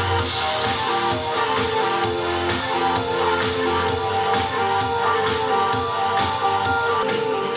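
A pop-rock song with strummed guitar and a steady drum beat, played through a portable Bluetooth speaker at high volume in a speaker test.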